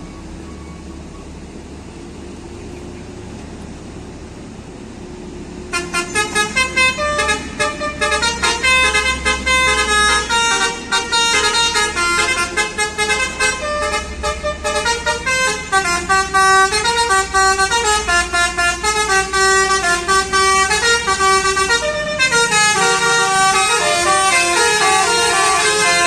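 Indonesian multi-tone 'telolet' bus horns playing fast melodic runs of notes back and forth, starting loud about six seconds in. Before that, a bus engine's low idling rumble.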